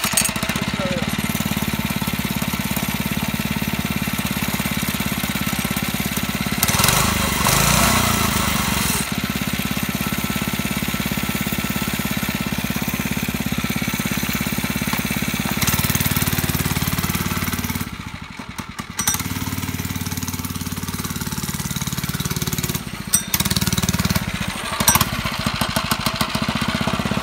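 Motovox mini bike's small single-cylinder engine running just after a pull start with the choke on. It revs up once about a quarter of the way in, its sound drops briefly about two-thirds in, and it runs unevenly with a few sharp knocks near the end.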